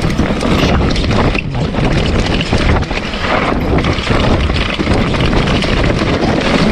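Wind blowing hard across the microphone, a loud, steady rushing with low rumbling buffets.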